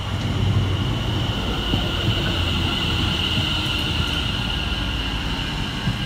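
Greater Anglia electric multiple unit moving slowly alongside the platform: low rumble of wheels on the rails with a steady high whine, strongest in the middle.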